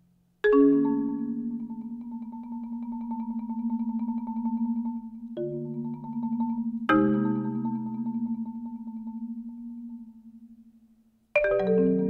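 Solo marimba playing rolled chords: a loud chord struck about half a second in and rolled on for several seconds, new chords entering about five and a half and seven seconds in, then a fade almost to nothing before another loud chord near the end.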